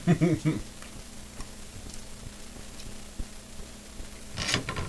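Hand brushing crumbs across a tiled countertop, a short scraping rasp a little before the end. Under it, a faint steady hiss of tortilla chips frying in a skillet of oil, with a few light clicks.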